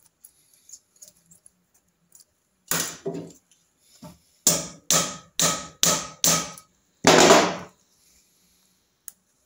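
A mallet tapping the alternator stator of a Triumph Trident T160 engine on its studs, to shift it and even out the air gap around the rotor. There are a couple of blows, then five quick taps about two a second with a light metallic ring, then one longer, louder knock.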